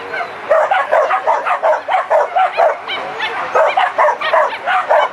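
Dog barking rapidly in short, high yips, about three or four a second, starting about half a second in.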